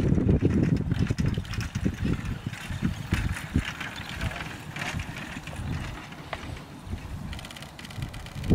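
Wind buffeting the microphone, loudest in the first two seconds, with light knocks and rattles from a pony trotting a four-wheeled carriage across grass.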